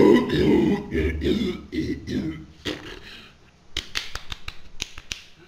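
A man's voice coughing and hawking up in the throat, as before a spit, for the first couple of seconds. A few sharp clicks follow near the end.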